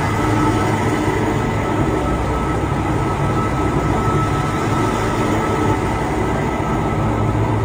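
Electric metro train running past along a station platform: a steady rumble of wheels and running gear, with a thin steady high tone running through it.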